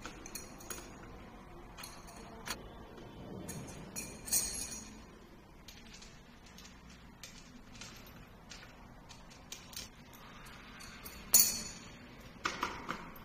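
Scattered metallic clinks and clicks of hand tools and bike parts being handled at an e-bike's front fork and axle, with the sharpest click near the end followed by a quick cluster of clicks.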